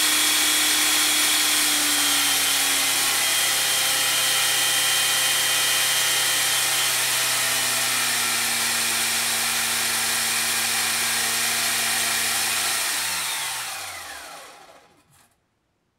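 Electric motor and gears of a vintage GMP Cricket model helicopter running with its rotors turning: a steady whine over a hiss. About thirteen seconds in the power is cut, and the whine falls in pitch as the mechanics spin down and stop over about two seconds.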